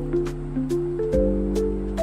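Soft background music: a gentle melody over sustained chords that change about a second in, with light ticking percussion keeping a steady beat.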